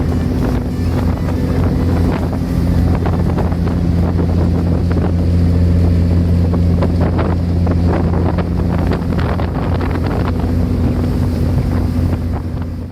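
Fishing boat's engine running steadily underway, a constant low drone under the rush of water, with wind buffeting the microphone.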